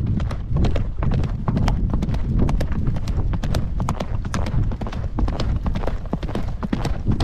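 Hoofbeats of a horse cantering on a dry dirt track, heard from the saddle as a fast stream of clicks over a heavy rumble of wind on the microphone.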